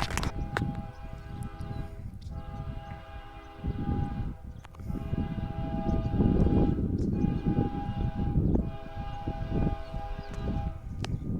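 Heavy freight train rolling by with a low rumble, its diesel locomotives' dynamic brakes giving a steady high whine that fades in and out.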